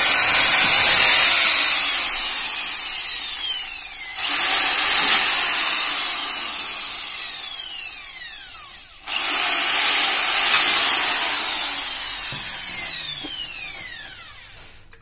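Electric hand drill boring through the moulded plastic case of a circuit breaker, in three runs of four to five seconds each. Each run starts sharply and its whine sinks in pitch as it goes; the last one winds down near the end.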